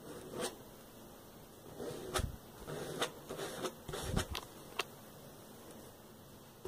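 An old plastic credit card scraped across a sock-fabric printing screen on a photo frame, pushing acrylic paint through: a run of short scrapes and sharp clicks, busiest from about two to four and a half seconds in.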